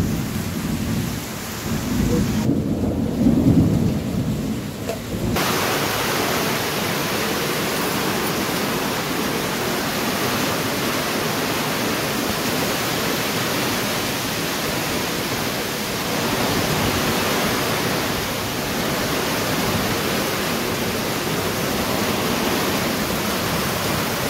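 Heavy monsoon rain pouring down onto a concrete courtyard, a steady dense hiss. In the first five seconds there is low rumbling under the rain, and then it cuts off sharply.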